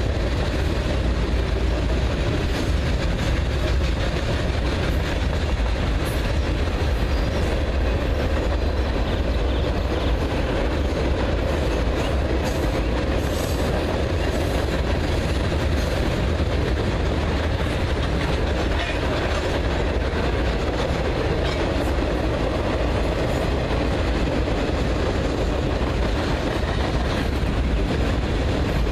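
Freight cars (covered hoppers, tank cars and boxcars) of a very long train rolling past at a good clip: a steady rumble and clatter of steel wheels on the rails.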